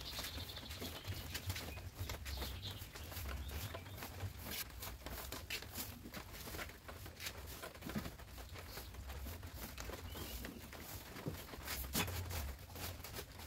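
Broom swishing across a concrete floor, sweeping up scattered light litter with irregular soft scrapes and small ticks.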